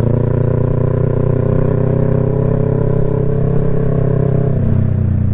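Yamaha MT-03's parallel-twin engine running steadily at a cruise, heard from the rider's seat; its note changes slightly about four and a half seconds in.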